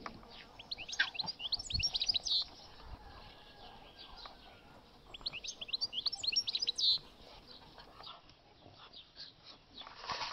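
A songbird singing two phrases about four seconds apart, each a quick run of high notes lasting about two seconds and ending in a short buzzy flourish.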